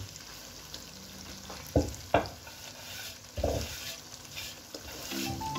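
Fish curry sizzling in a non-stick wok while a spatula stirs and nudges the fish pieces, knocking against the pan a few times about two and three seconds in.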